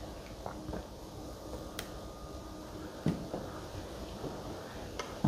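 Quiet room tone with a few faint clicks and a soft low thump about three seconds in.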